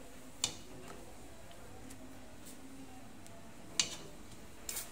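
Wooden chopsticks and a wire mesh strainer tapping against a steel pot while boiled noodles are lifted out to drain: a sharp click about half a second in, another near the end, and a couple more just after it.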